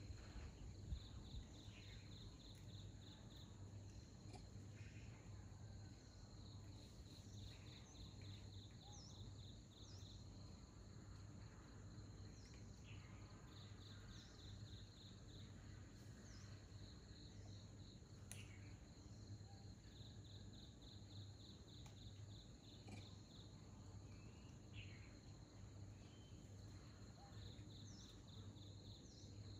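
Faint insect trilling in pulsed runs a few seconds long, coming back about every six seconds, with occasional short high chirps in between.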